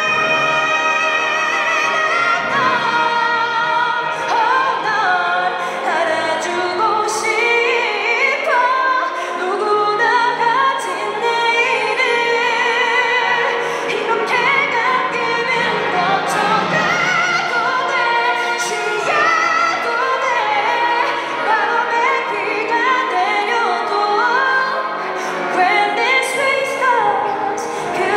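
A female vocalist singing a ballad live, with vibrato on held notes, over symphony orchestra accompaniment.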